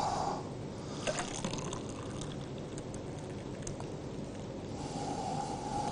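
Freshly blended lemon-and-kiwi juice poured from a blender jug into a glass: a faint liquid trickle with a few light clicks.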